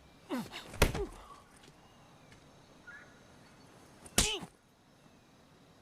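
A sharp, short body-impact sound effect about a second in, as one man shoves or strikes the other, followed near four seconds by a brief vocal cry with falling pitch.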